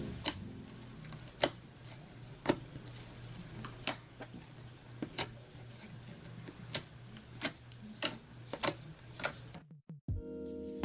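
Clear slime being squeezed and worked by hand, giving sharp, irregular clicks and pops, about one a second. Faint music plays underneath; it drops out briefly near the end, then comes back louder.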